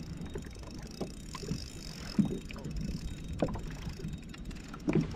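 Hobie Outback fishing kayak on the water: a steady low rumble of wind and water on the microphone, with a few scattered knocks against the plastic hull.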